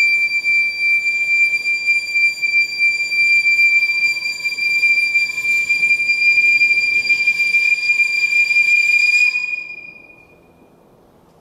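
Piccolo holding one long, very high note, steady in pitch, that stops about nine and a half seconds in.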